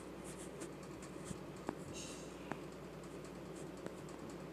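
A few faint, light clicks and taps of a finger working a phone's touchscreen, over a low steady hum.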